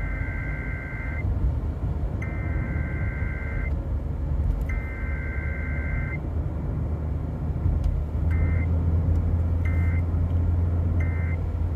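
Emergency Alert System data bursts over the radio: three long warbling two-tone bursts, the SAME header that opens an alert, then three short bursts, the end-of-message code. A steady low rumble runs underneath and grows louder about eight seconds in.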